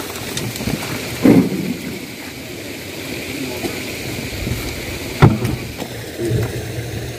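Steady rushing outdoor noise with two sharp knocks of plastic crates being handled, about a second in and about five seconds in, the second the louder.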